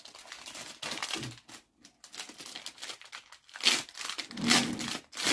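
Clear plastic packaging of a helmet visor crinkling and rustling as it is pulled open by hand, in irregular bursts, the loudest about three and a half to four and a half seconds in.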